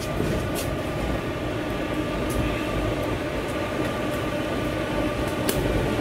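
Hybrid wood and waste-oil stove burning hard with oil dripping onto the wood: a steady roaring rumble of the fire, with a few sharp crackles.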